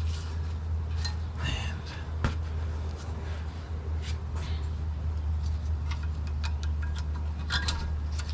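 Rear brake pads being pried out of the caliper carrier: scattered light metallic clicks and scrapes, with one sharper knock a little over two seconds in, over a steady low hum.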